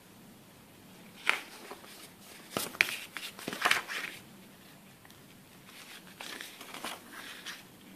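The pages of a CD's paper booklet rustle as it is picked up, opened and leafed through, with a few sharp taps of handling. This comes in short bursts about a second in, around three to four seconds in, and again from about six seconds.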